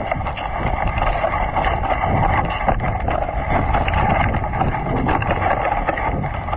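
Dog sled runners sliding over snow: a steady scraping hiss, with wind on the microphone and small knocks from the sled frame.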